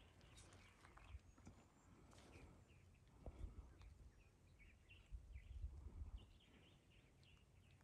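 Near silence: faint outdoor ambience with a few scattered faint high chirps and soft low rumbles.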